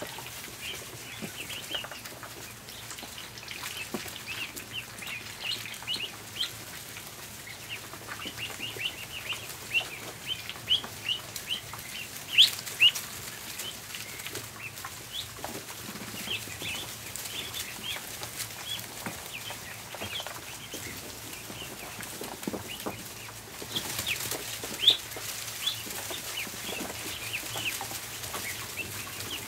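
A flock of ducklings peeping: many short, high peeps in quick, irregular succession, with a few louder ones about twelve seconds in and near the end. Scattered soft taps sound underneath.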